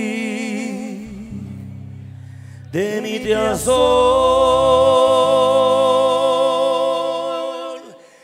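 Live norteño band music: a male lead singer holds long sung notes with vibrato over accordion and bass. The held note and the band die away just before the end.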